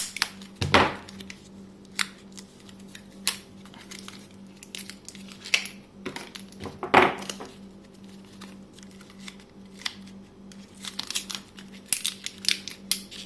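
Plastic blister packaging of Sony AA rechargeable cells being handled and opened: crinkling and tearing with scattered sharp clicks, the loudest rustle about seven seconds in.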